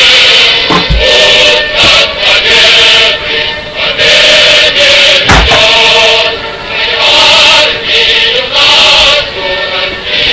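Loud group singing or chanting in chorus, several voices together in phrases. A few short thumps cut in, the loudest about five seconds in.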